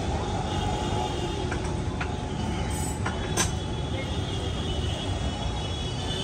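Steady low rumble of street traffic, with a single sharp click about three and a half seconds in.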